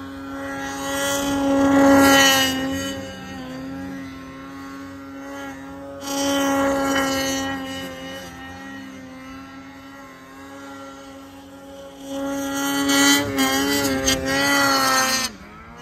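Snowmobile engine running at a steady, high, even pitch. It swells louder about two seconds in, again around six seconds, and for a longer stretch near the end, where the pitch wavers before the sound drops away.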